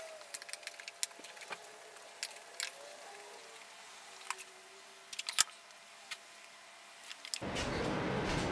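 Scattered light clicks of a metal spoon against a ceramic bowl during a meal, one sharper knock about five seconds in. About seven seconds in, a steady rush of running water starts up in a bathroom.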